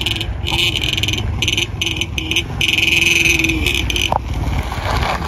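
Wind buffeting the microphone with a low rumble, under a high-pitched chirping that pulses on and off several times a second.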